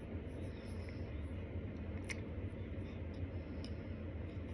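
Chewing a mouthful of starch, with a few small sharp crunches or clicks, the loudest about two seconds in, over a steady low hum.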